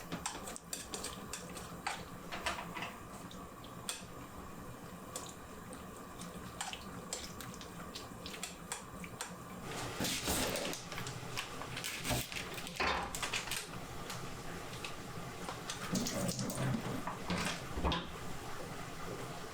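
Water from a kitchen tap running and splashing in a sink in spurts, with small clicks and clinks of dishes and utensils.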